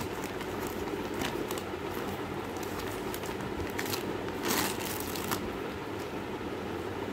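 Thin plastic packaging bags crinkling and rustling as they are handled and a curtain is pulled out, in short bursts with the loudest about four and a half seconds in, over a steady background hum.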